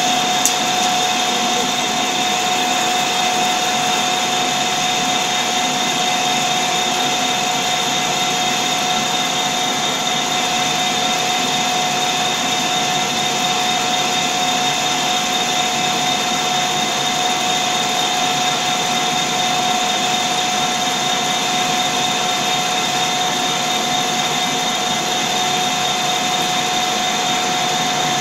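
Large engine lathe running steadily, spinning a heavy steel workpiece, with a constant machine noise and two steady whining tones, one mid-pitched and one high.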